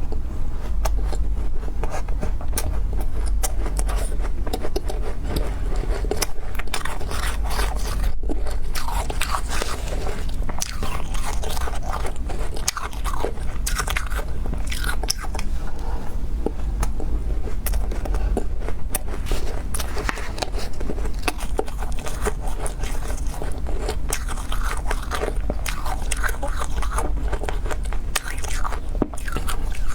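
Close-miked crunching and chewing of freezer-frost ice: a dense, continuous run of crisp bites and crunches over a steady low hum.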